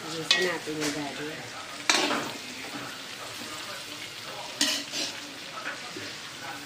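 Taro leaves and sautéed aromatics sizzling in a hot pan as they are stirred, the utensil scraping and knocking against the pan several times over a steady frying hiss.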